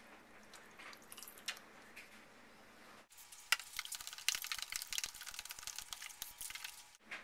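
Metal spoon stirring chia seeds soaking in water in a plastic tub: a fast run of wet clicks and scrapes that starts suddenly about three seconds in and cuts off near the end. Before it, a few faint drips as lemon juice is squeezed in from a squeeze bottle.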